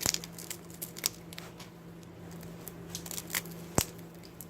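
Ice cream cone being crunched up into pieces: scattered crisp cracks and crackles, with one sharp snap near the end the loudest.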